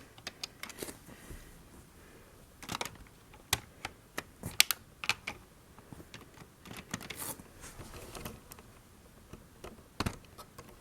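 Irregular light clicks and taps of plastic LEGO pieces being handled and twisted.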